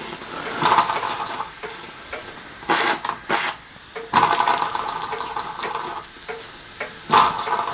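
Castle Products Model B toy horizontal steam engine hissing steam in about four irregular bursts of a second or so, as it is started by hand and struggles to keep running.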